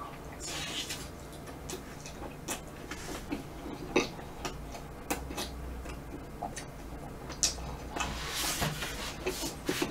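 Close-miked chewing of vanilla ice cream and chewy chalddeok ice (ice cream wrapped in soft rice cake) with the mouth closed: many small wet mouth clicks, with two short hissing noises, about half a second in and around eight seconds.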